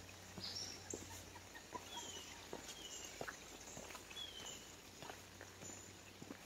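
Footsteps crunching along a dirt and gravel forest trail at a steady walking pace, about two steps a second. A bird calls several times in between with short, high chirps that fall in pitch.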